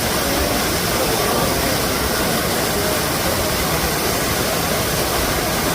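Waterfall rushing steadily: a loud, even noise of falling water.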